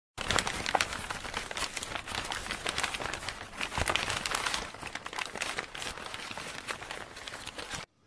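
Dense crackling, crumpling noise full of sharp irregular clicks, a sound effect under a channel's logo intro; it cuts off suddenly near the end.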